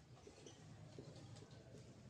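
Near silence: room tone with a low hum and a few faint soft ticks, as of a marker writing on a whiteboard.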